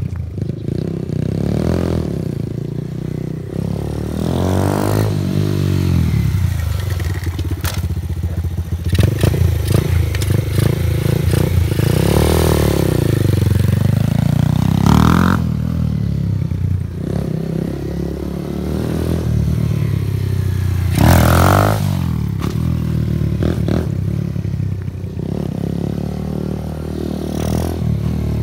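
Small single-cylinder 125cc Grom-clone motorcycle, a TaoTao Hellcat with an aftermarket slip-on exhaust, being ridden and revved up and down over and over, with several sharp rev peaks.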